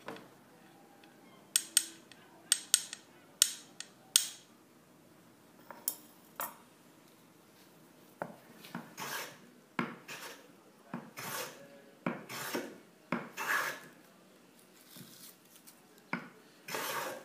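A few sharp knocks and clicks, then a run of back-and-forth rubbing strokes of a wooden block on an abrasive, and near the end one longer stroke of a small hand plane cutting a wood shaving.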